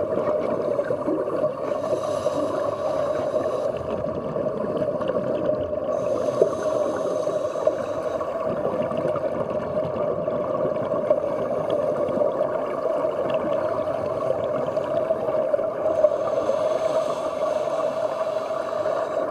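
Muffled underwater noise picked up by a diver's camera: a steady rumbling hum of water against the housing, with three stretches of hissing, bubbling noise in the first half and near the end.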